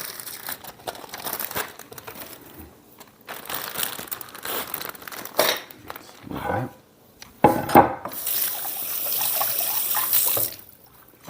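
Plastic zip-top bags rustling and crinkling with scattered clicks while rib halves are loaded into them. Then, from about eight seconds in, a kitchen faucet runs steadily for a couple of seconds and shuts off.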